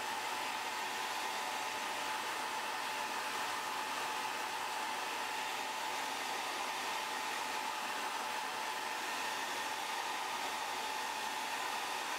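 Hot-air blower running steadily, a rushing of air with a faint steady whine, the kind used to soften the adhesive holding an iPhone's front glass to its midframe.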